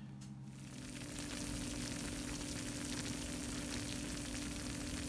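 Hot food sizzling with a steady, dense crackle, over a steady low hum.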